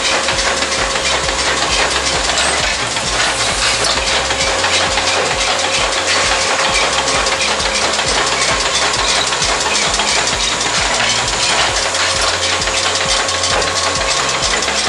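Tecnomeccanica T2 Prima single-chamber tea bag machine running, a rapid, even mechanical clatter from its cams, rollers and tag wheels, with a faint steady tone underneath.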